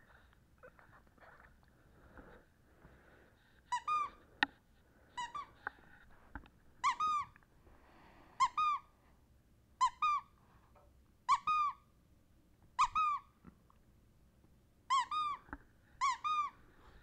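Rubber squeaky toy being squeezed over and over, starting about four seconds in. Each squeeze gives a quick pair of high squeaks, roughly one every second and a half, about nine times.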